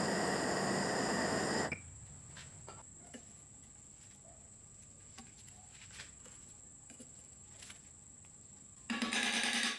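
Gas blowtorch flame hissing steadily against a rusted bolt, cutting off sharply about a second and a half in. After that come faint scattered taps and clicks of a thin metal rod against the heated part.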